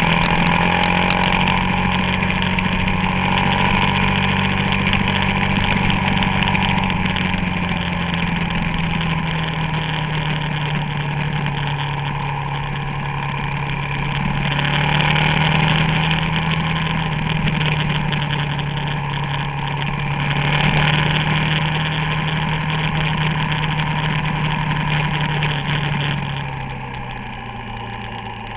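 Suzuki DR-Z400SM's single-cylinder four-stroke engine running at a steady cruise under a constant rush of wind noise, its note drifting slightly up and down. Near the end the engine note drops lower and quieter as the bike slows.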